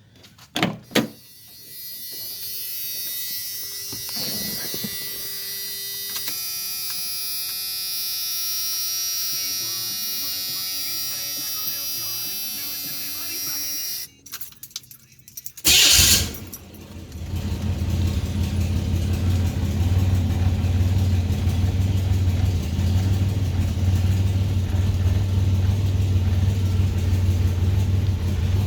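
A steady hum of several held tones for about twelve seconds, then the 1985 Chevy S10's 2.8 L carbureted V6 is cold-started: a short loud burst of cranking about sixteen seconds in, after which it catches and settles into a steady idle.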